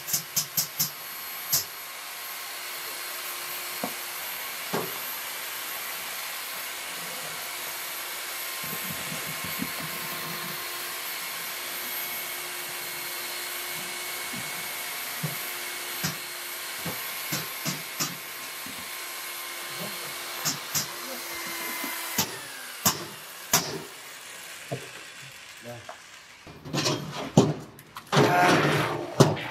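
A machine running steadily, a hiss with a faint hum and scattered clicks and knocks, which stops about three-quarters of the way in. Near the end, wet foam concrete slurry is tipped from a drum into a metal block mould: a loud pouring noise with knocks.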